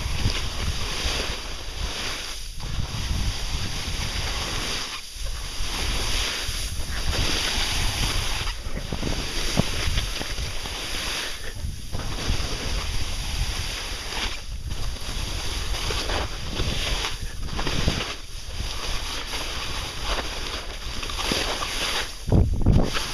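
Wind rushing over the microphone together with the hiss and scrape of sliding on snow during a downhill descent, the noise dropping away briefly every two to three seconds as the turns link. Near the end comes a louder low rumble of wind buffeting.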